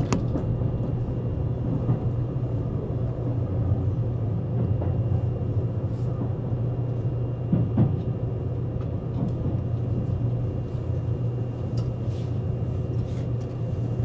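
Cabin rumble of a Seibu 001 series Laview electric train slowing into a station platform: a steady low drone with a few short knocks from the running gear.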